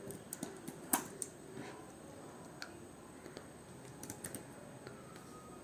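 Typing on a computer keyboard: faint, scattered keystrokes in short runs, mostly in the first second and again around four seconds in.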